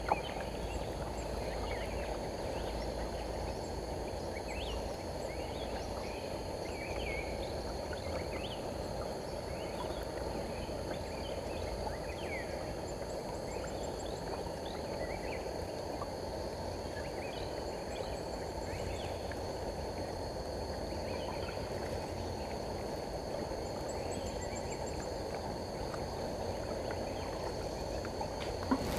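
River ambience heard from a kayak: a steady low rush of water and wind noise, with scattered short bird chirps throughout and a single knock near the end.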